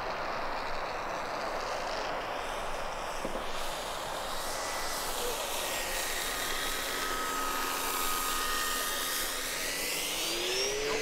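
Electric motor and propeller of an E-flite Air Tractor 1.5m RC plane whining through a low pass. The whine comes through clearly about four seconds in and rises in pitch near the end.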